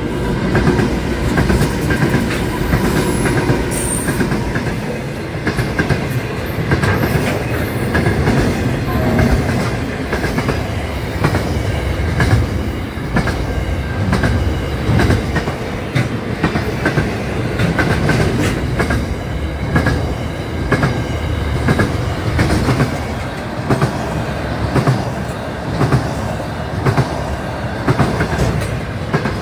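Pacific National diesel freight train passing close by: locomotives and a long run of wagons rumbling past, the wheels clicking rhythmically over the rail joints.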